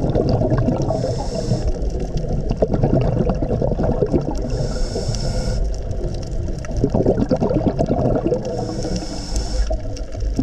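Scuba diver breathing through a regulator underwater: three hissing inhalations about four seconds apart, with bubbling exhalations crackling in between.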